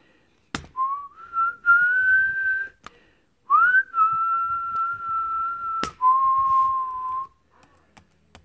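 A person whistling a slow tune of long held notes, some sliding up or down into the next. Three or four sharp clicks fall between the notes.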